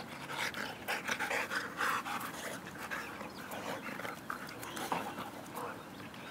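A boxer and a ginger dog panting hard right beside the microphone after running, in quick uneven breaths that are loudest in the first two seconds and ease off towards the end.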